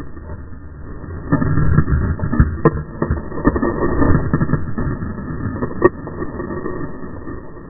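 Mountain bike rolling along a dirt singletrack: tyre rumble and rattling from the bike, with grass and leaves brushing against the wheel and camera. Two sharp knocks stand out, about two and a half seconds in and again near six seconds.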